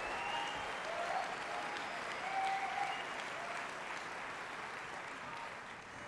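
Audience applauding, with a few short calls from the crowd, the applause gradually dying away near the end.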